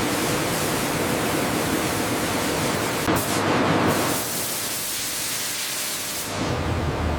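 Steady rushing hiss of factory processing equipment, briefly louder about three seconds in, then thinning before a low steady hum comes in near the end.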